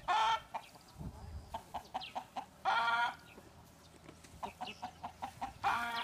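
Chickens squawking loudly three times, each call about half a second long and about three seconds apart, with quick short clucks in between.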